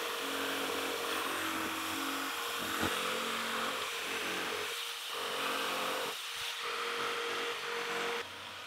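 Jigsaw cutting a rectangular opening in a plywood panel, running steadily. The cut eases off briefly twice in the middle. The cutting noise drops sharply near the end while the motor keeps running.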